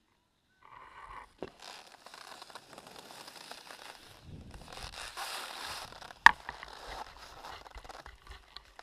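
Scraping and hissing of sliding over groomed snow, with a sharp knock about six seconds in, then crunching and rustling.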